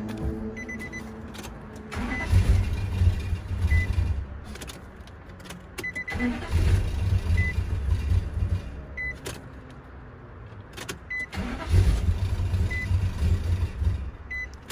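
2004 Nissan Titan's 5.6-litre V8 being cranked over in three tries of two to three seconds each, to get it started after a fuel pump replacement. A warning chime beeps repeatedly throughout.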